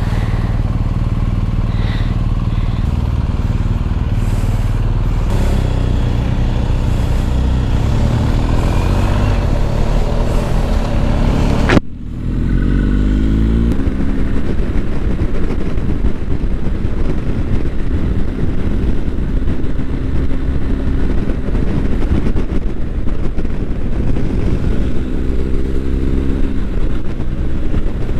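BMW R1250 GS motorcycle's boxer-twin engine pulling away and accelerating, its pitch rising through the gears several times. The sound changes abruptly about twelve seconds in.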